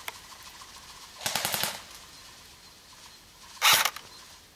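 Airsoft rifle firing two short rapid-fire bursts of clicking shots: one about a second in, and a shorter, louder one near the end.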